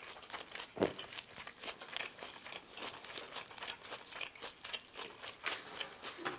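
A person chewing a big, overstuffed lettuce-wrap mouthful of rice and side dishes close to the microphone: an irregular run of small wet clicks and crunches, with one sharper crunch a little under a second in.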